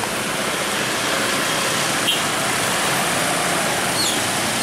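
Street traffic of motor scooters and cars passing close by, a steady wash of engine and road noise. A brief click comes about two seconds in, and a short high falling chirp near the end.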